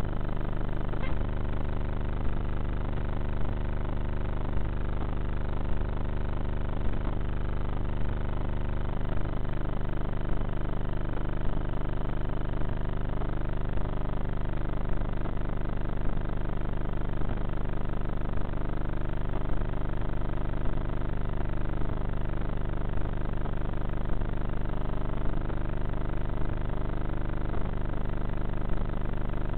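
Bixler foam RC plane's electric motor and propeller droning steadily in flight, with a shift in the low hum about a second in and again about nine seconds in.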